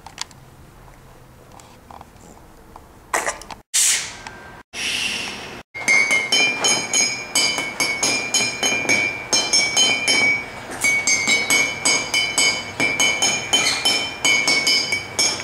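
A pencil tapping drinking glasses and glass mugs filled with water, playing a quick run of ringing notes at several pitches. The tapping starts about six seconds in.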